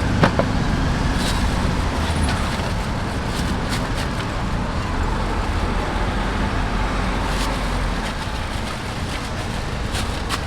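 Steady road traffic rumble from passing street vehicles, with a few light clicks scattered through it.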